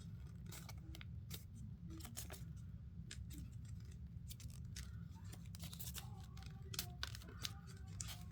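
Sheet of paper being handled and creased into folds by hand: a string of short, crisp rustles and crinkles, over a steady low hum.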